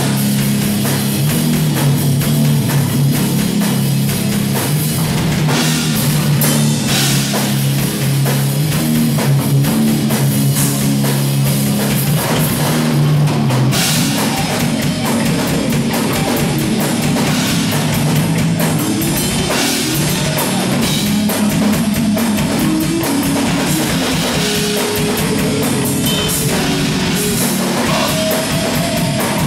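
Live death/thrash metal band playing loud: distorted electric guitars riffing over fast drum kit. The riff changes about halfway through.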